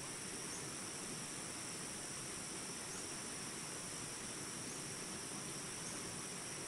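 Flowing water rushing steadily, with a steady high-pitched insect chorus, like crickets, over it.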